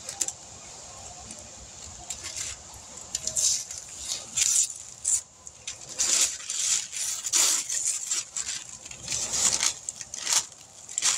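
Newspaper masking paper and masking tape being pulled off a painted truck body and crumpled by hand: irregular rustling, crackling and tearing in bursts that start about two seconds in.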